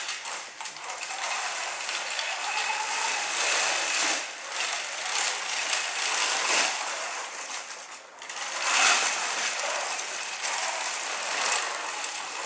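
Mecanum-wheel robot drivebase running across carpet: its electric drive motors and gearboxes run with a mechanical whir that swells and fades as the robot moves, dropping away briefly about four seconds in and again about eight seconds in.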